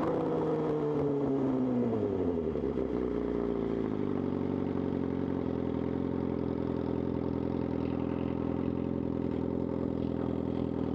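Suzuki GSX-R 750's inline-four engine, revs falling over the first three seconds or so, then idling steadily.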